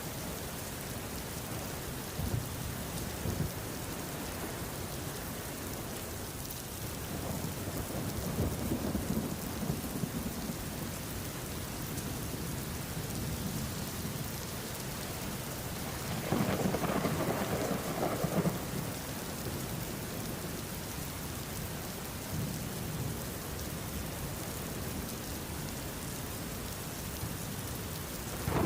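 Steady heavy rain falling, with thunder rolling low several times, the loudest roll about two thirds of the way through.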